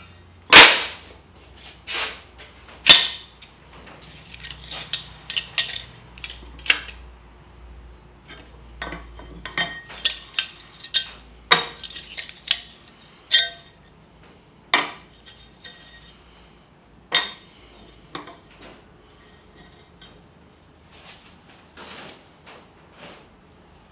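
Bent pieces of steel flat bar clinking and clanking against each other and the stand's steel frame as they are handled and set in place: a series of sharp, separate metallic knocks, loudest in the first three seconds.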